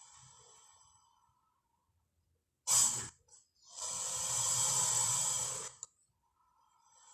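Creature sound effect for a Spinosaurus: a faint hissing breath fades out, then a sudden sharp snort about three seconds in, followed by a long hissing exhale of about two seconds with a low rumble underneath.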